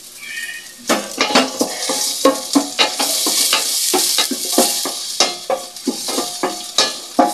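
Ginger sautéing in hot oil in a stainless steel pot: sizzling starts about a second in and keeps on. A wooden spatula knocks and scrapes against the pot again and again as it is stirred.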